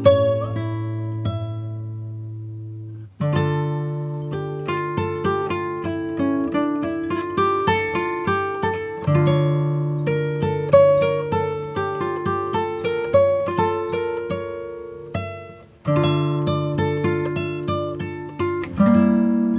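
Background music: acoustic guitar plucked and strummed in a steady rhythm, with the sound dying away twice, about three seconds in and near fifteen seconds in, before picking up again.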